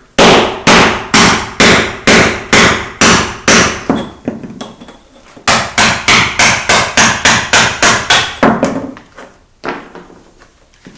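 Mini sledgehammer striking a steel chisel to break up a concrete floor, metal on metal. About eight steady blows come at two a second, then after a pause of over a second a quicker run of about ten at three a second, and a couple of lighter taps near the end.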